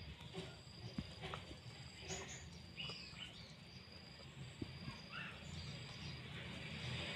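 Puppy eating from a bowl: faint, scattered small clicks of chewing and licking. Behind it there is a steady thin insect drone and a few short bird chirps.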